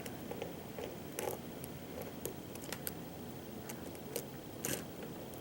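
Faint, scattered small metallic ticks and scrapes from a hook pick lifting pins in a pin-tumbler lock under tension, with the core sitting in a deep false set.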